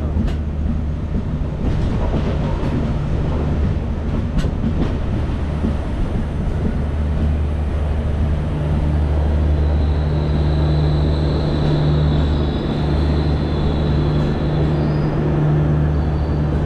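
Konkan Kanya Express passenger coach heard from its open doorway as it rolls into a station and slows: a steady low rumble with a few sharp wheel clicks. A thin high squeal joins in for the second half as the train brakes.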